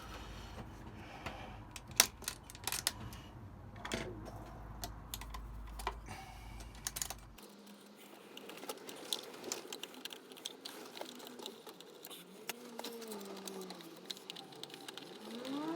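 Scattered small clicks and taps of plastic and metal as an electrical wall socket is handled and fitted back into place, with one sharp click about two seconds in the loudest.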